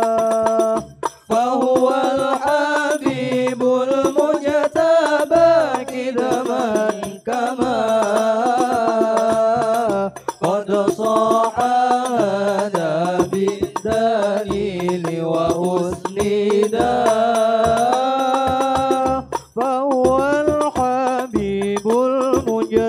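Male voice singing sholawat into a microphone in long, wavering held notes, with a brief break about a second in. Rebana frame drums keep a steady beat underneath.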